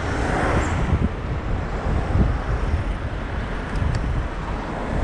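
Wind rumbling on the microphone of a moving bicycle, with road traffic; a vehicle goes by in the first second.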